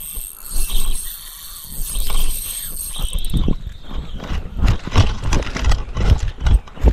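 Line rasping on a hooked largemouth bass's teeth during the fight, heard as a quick ratchet-like clicking, with knocks of the tackle being handled. The angler reads the rasping as a sign that the line is wearing, so he cannot force the fish.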